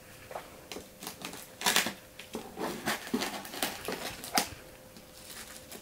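Scissors snipping through the packing tape and plastic wrap of a bubble-wrapped parcel, with irregular snips, clicks and crinkles.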